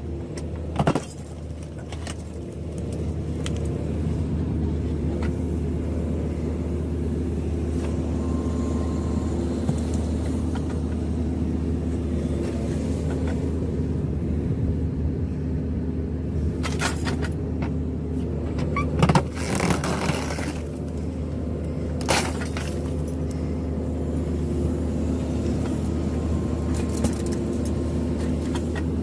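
Heavy machine's engine running steadily, with a few sharp knocks here and there, a cluster of them a little past the middle.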